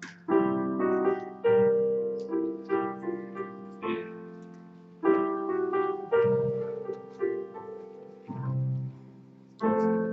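Piano playing the slow chords of a hymn tune, in phrases, each chord struck and fading away.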